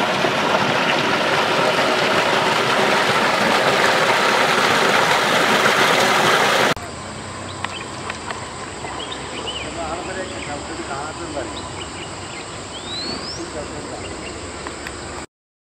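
A small forest stream trickling and splashing over rocks, a loud steady rush that cuts off about seven seconds in. Then quieter ambience with a steady high insect drone and scattered bird chirps, including one rising whistle near the end.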